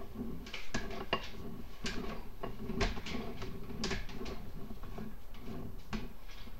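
Irregular clicks and knocks, a few a second, as a sewer inspection camera's push cable is fed in by hand, over a faint steady hum.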